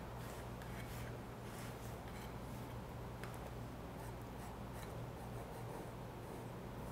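Hand-held sanding tool rubbing along the cut edge of a sewn leather clutch in short strokes, roughly two a second, grinding the rough, fuzzy leather edge smooth and flat. A steady low hum runs underneath.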